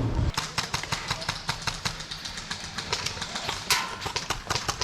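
Footsteps and gear knocking and rattling close to a body-worn camera as a player moves, a dense irregular run of sharp clicks and thuds with one louder knock a little before four seconds in.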